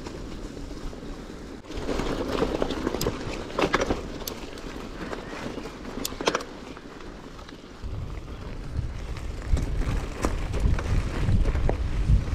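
Bicycle riding noise: tyres rolling over the path with rattling clicks from the bike. A low rumble, like wind buffeting the microphone, joins about eight seconds in.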